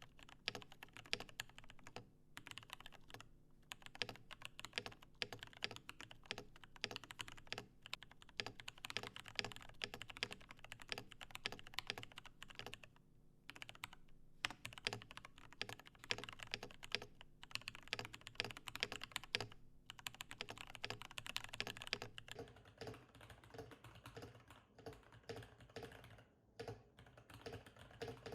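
Fast typing on a Rama U-80 mechanical keyboard with lubed Cherry MX Clear tactile switches, a brass plate, an internal dampener and XMI Cadet keycaps. The keystrokes run as a dense stream of clicks with a few brief pauses, and turn sparser near the end.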